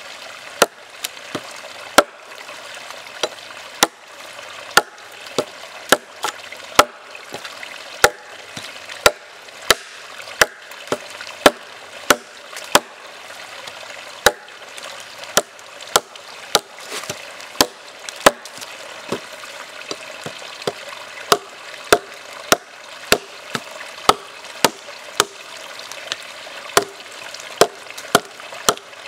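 Condor Hudson Bay large survival knife, a heavy 8.5-inch high-carbon steel blade, chopping into a log: sharp, regular strikes about once a second. A faint steady hiss runs beneath.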